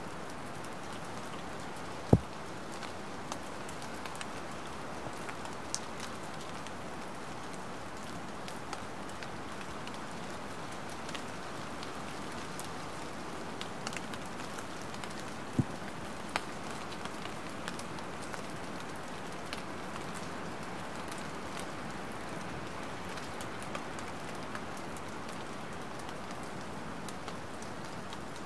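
Light rain falling steadily, with scattered individual drops ticking; a louder sharp drop or tap about two seconds in and another about halfway through.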